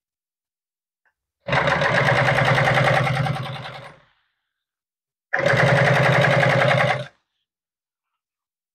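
Industrial sewing machine running in two bursts of rapid stitching while top-stitching a vinyl cushion cover seam; the first run slows and fades out, the second stops sharply.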